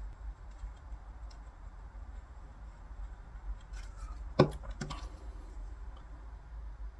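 Small handling clicks and taps from working on the broken lure rod's pieces while gluing, with one sharper knock that rings briefly a little past halfway and a smaller one just after, over a steady low hum.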